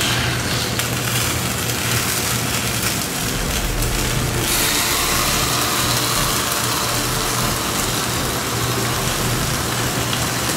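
Steady hum and hiss of a commercial kitchen's gas range, with a spatula scraping sauce from a frying pan; the hiss grows a little brighter about halfway through.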